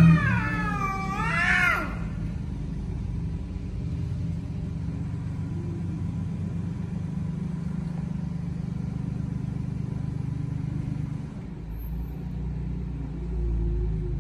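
Male cat yowling in long cries that waver up and down in pitch, stopping about two seconds in; a steady low rumble continues after.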